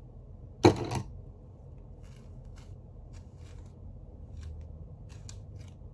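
Handling noises from hair and styling tools: a short, loud rustle less than a second in, then light scattered clicks.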